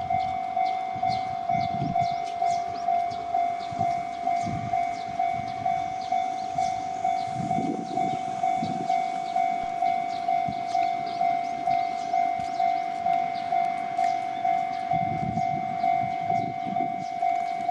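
Japanese railway level-crossing alarm ringing its electronic bell, a steady tone struck about twice a second. Under it a train runs over the crossing, with low rumbling swells and clicking wheels.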